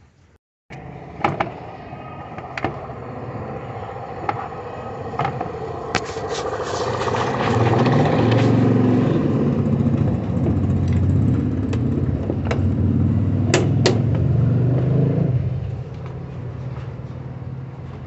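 An engine running close by, its low rumble growing louder about six seconds in and easing off near the end. Over it come scattered sharp clicks and taps of hands working a switch out of a metal generator control panel.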